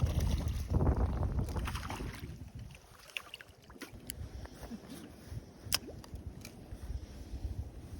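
Wind buffeting the microphone, a low rumble that is strongest for the first couple of seconds and then eases off. Two sharp clicks come in the middle.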